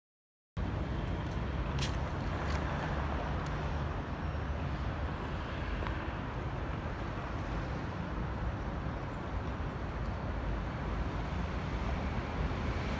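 Steady city street traffic noise with a low rumble of cars and trams at a tram junction, cutting in abruptly just after the start. There are a couple of short, sharp high clicks about two seconds in.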